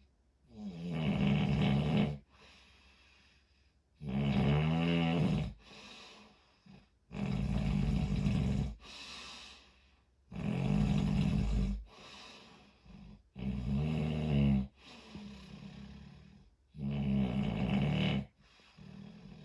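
Snoring in a steady rhythm: six loud snores about every three seconds, each followed by a quieter breath.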